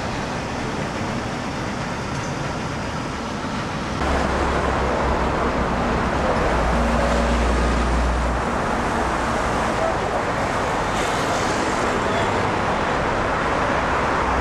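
Road traffic on a busy city street: cars passing with a steady noise of engines and tyres. It gets louder about four seconds in, with a deep rumble for a few seconds.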